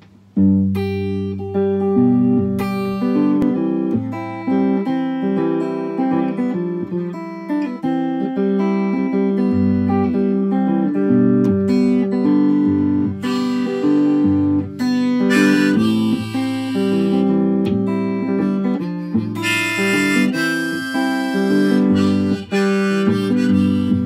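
Guitar strummed in steady chords with a harmonica in a neck rack playing a melody over it, starting about half a second in; the harmonica comes through louder in several phrases in the second half.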